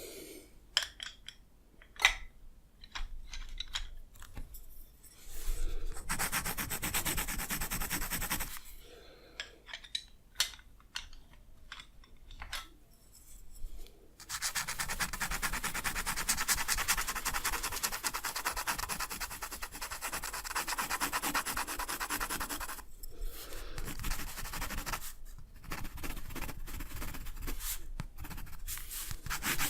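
Rapid back-and-forth strokes rubbing across drawing paper, in a short spell and then a long steady one. Scattered light taps and clicks fall between the spells.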